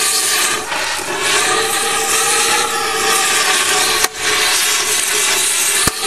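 Cutting torch running with a steady hiss as it cuts a slit through a worn tractor rear axle bearing inside its cast iron housing, with faint steady tones under it. Two sharp clicks, about four seconds in and near the end.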